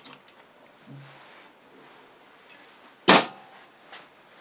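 A single loud, sharp clack about three seconds in, from the wood lathe's belt-change hardware as the drive belt is reset onto the high-speed pulley; otherwise only faint shop background with a brief low hum about a second in.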